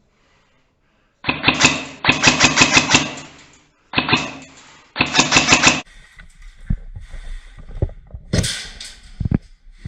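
Airsoft gun firing on full auto in four rapid bursts, the longest about a second and a half. Then quieter rustling with a few sharp knocks.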